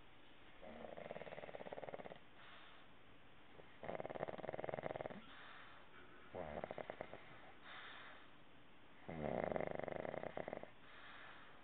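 Snoring: four loud, rattling snores come about every two and a half to three seconds, with softer breaths between them.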